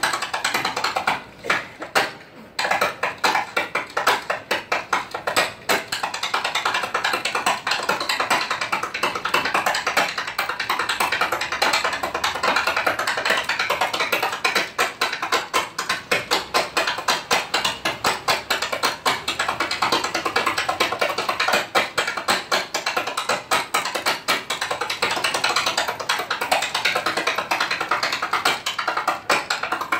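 Tap shoes striking a wooden stage floor in a fast, continuous tap-dance routine: a dense, rhythmic stream of sharp taps, with a short pause about a second in.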